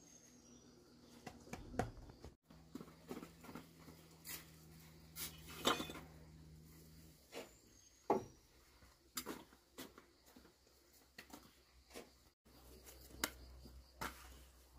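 Scattered, irregular light knocks and clicks over a faint low hum, broken twice by brief drop-outs.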